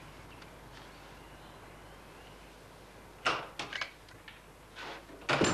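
Faint hiss, then several sudden knocks and clunks starting about three seconds in, the loudest near the end.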